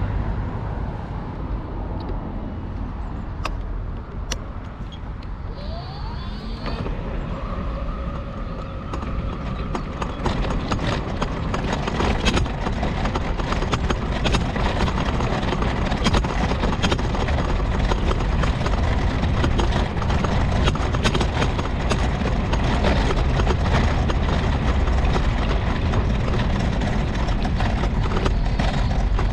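Mobility scooter on the move, heard from a camera mounted on it: continuous rattling and rumbling from the ride over the ground, with a whine that rises about six seconds in and then holds steady for a few seconds.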